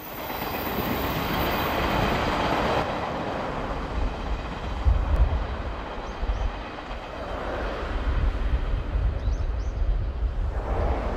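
Local electric multiple-unit train running along the track: a low rumble with wheel-on-rail clatter, loudest as it draws near.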